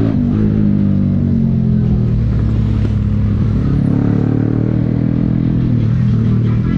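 Motorcycle engine heard from on board, running at low speed with its pitch rising and falling a few times as the throttle opens and closes.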